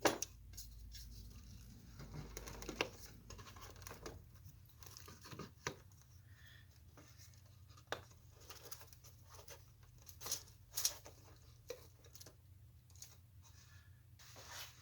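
Scattered light clicks, taps and rustles of hands working wood pieces and tools on a workbench, over a faint steady hum.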